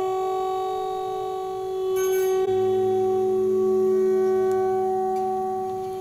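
Electric autoharp-zither ringing in long, held drone tones with steady overtones. A lower tone comes in about halfway through, under a brief high shimmer.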